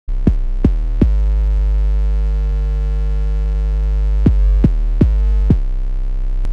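Electronic music: a held synthesizer chord over a deep bass, cut by sharp hits that drop in pitch, three in the first second and four more in quick succession a little past the middle.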